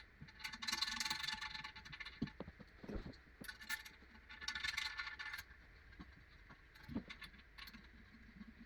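Small metal hardware clinking and rattling in two bursts of a second or two each, with a few single knocks after: nuts and washers being fitted and hand-threaded onto the toilet tank-to-bowl bolts from underneath.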